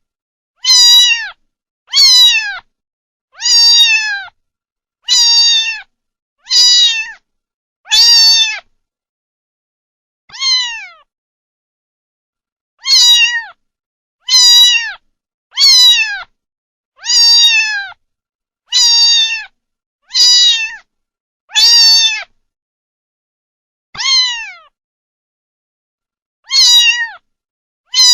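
A kitten meowing over and over: about sixteen short, high-pitched meows, each falling in pitch at the end. They come roughly every second and a half, with two longer pauses, and there is dead silence between calls.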